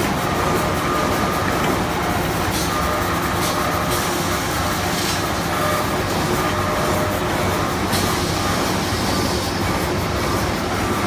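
Automatic band-saw toilet-roll cutting machine running steadily, with a faint whine that comes and goes and a few short, sharper hissing sounds.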